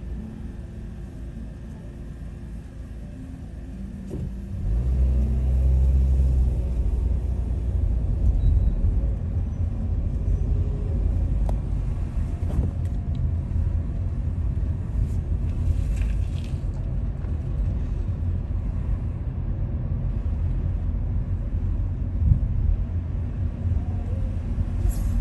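Low engine and road rumble of a car heard from inside the cabin. It is quieter while the car is stopped, grows louder about four to five seconds in as the car pulls away, then holds steady as it drives on.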